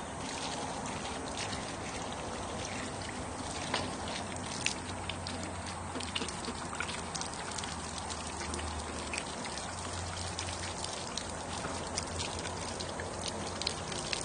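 Water running from a shower and splashing, with scattered drips and patters.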